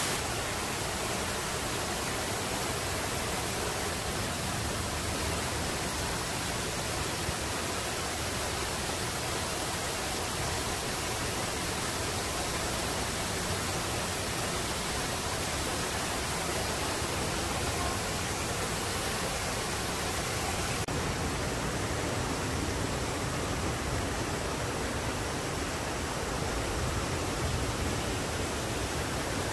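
Steady rush of a small waterfall and stream spilling over rocks, an even hiss with no breaks.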